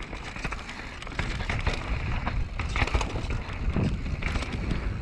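Commencal Meta V4.2 enduro mountain bike ridden fast down dirt singletrack: tyres rumbling over packed dirt and roots, with many quick clicks and rattles from the bike and wind buffeting the microphone.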